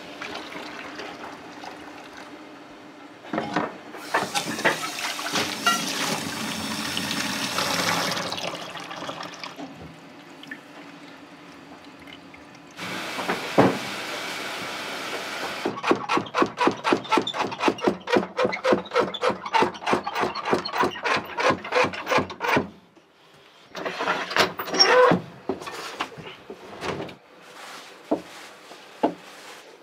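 Restaurant kitchen work: water running from a tap in two spells, then a run of rapid, even knocks, about five a second, for several seconds, followed by scattered clicks and clatters.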